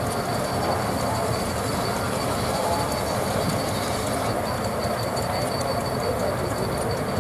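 Steam traction engine running and driving a circular saw bench through a long flat belt: a steady mechanical clatter and rumble with a thin, steady high whine over it.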